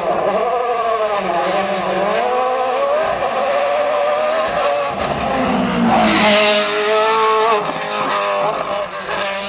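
Sports prototype race car at full throttle, its engine pitch rising and dropping with gear changes as it approaches. It passes close, loudest about six seconds in, and revs up again as it pulls away.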